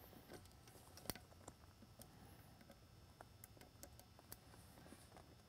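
Near silence with faint scattered clicks and taps of fingers working a stretchy rubber band around the edge of a plastic LED beacon base; one sharper click about a second in.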